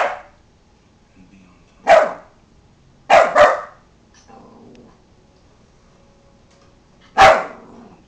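Small white fluffy dog barking in short, sharp barks: one at the start, another about two seconds in, a quick double bark around three seconds, and one more near the end.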